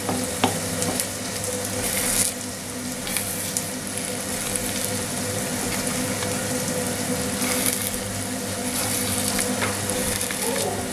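Spaghetti-and-egg frittata frying in seed oil in a pan, sizzling steadily and flaring louder a couple of times, while a wooden spoon stirs and scrapes through it.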